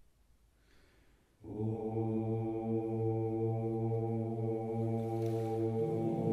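Sardinian men's choir entering about a second and a half in after near silence, singing a long, held low chord; the bass moves to a new note near the end.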